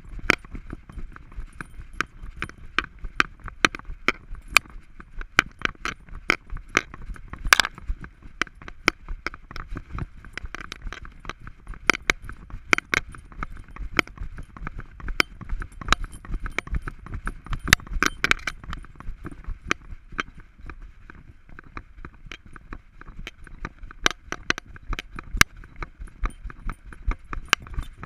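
Irregular clicks and metallic clinks, a few a second, from the camera harness and gear jostling on the back of an Alaskan Malamute as she walks, over a low rumble of rubbing and handling noise.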